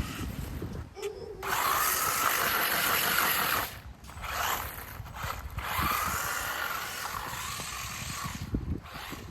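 Small electric RC car (WLtoys 144001) driven in two main runs: the motor whine rises and falls over a hiss of tyres on the ground, with a short burst in between.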